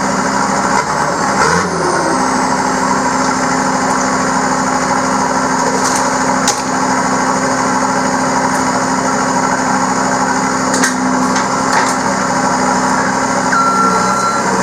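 Skid steer engine running steadily at idle, with a few short metallic clicks and taps partway through.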